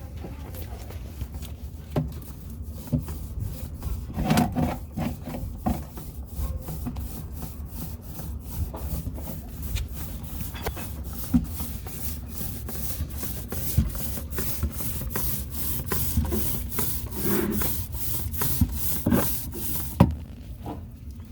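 Rhythmic rubbing or scraping strokes on a surface, about three a second. They grow louder through the second half and stop suddenly near the end.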